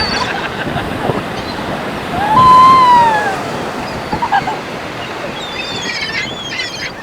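Surf washing steadily on the beach. About two and a half seconds in comes one loud, long bird call whose pitch rises and then falls, and a few quicker, higher calls follow near the end.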